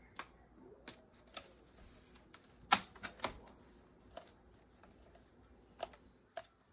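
Irregular plastic clicks and knocks from handling a cordless stick vacuum, the loudest about two and a half seconds in. No motor starts: the vacuum has failed and will not turn on.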